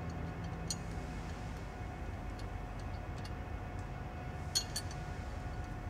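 A few light metallic clicks and ticks as 7/16-14 steel bolts are dropped by hand into the bolt holes of a shaft-mount rocker stand on a cylinder head. There is a single click about a second in and a quick pair near the end, over a steady faint hum.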